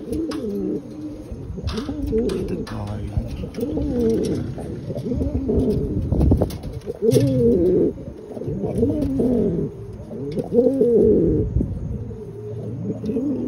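Domestic pigeon cooing over and over, each coo a low call that rises and falls in pitch, loudest in the middle of the stretch.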